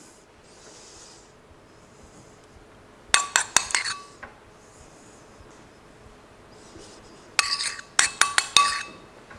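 Metal spoon clinking against a ceramic bowl as dollops of paste are knocked off it. Two quick clusters of taps come about three seconds in and again near the end, each with a brief ring from the bowl.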